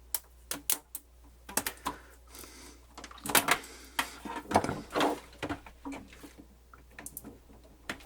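Irregular clicks, knocks and short rattles from handling the opened Pioneer CT-W802R cassette deck, with busier bursts of clattering about three and a half and five seconds in.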